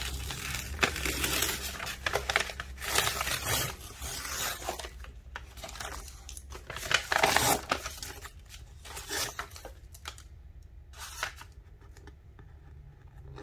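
Sublimation transfer paper being peeled and torn off a journal cover it has stuck to after a too-hot press. It rips in repeated bursts, loudest about seven seconds in, then a few short rips and paper handling.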